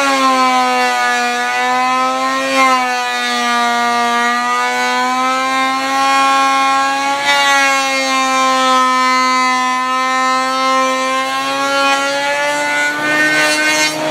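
Benchtop thickness planer planing a chestnut board, its motor giving a loud whine. The pitch drops as the board feeds in and the motor labours under the cut, wavers while it cuts, and rises again near the end as the board clears the cutterhead.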